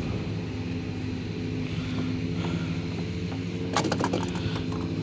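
Steady drone of an engine running at constant speed, with a short cluster of sharp clicks or taps a little before four seconds in.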